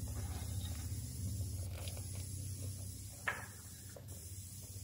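Pot of milk and fried vermicelli bubbling on the stove, a low steady rumble, with one light knock a little over three seconds in.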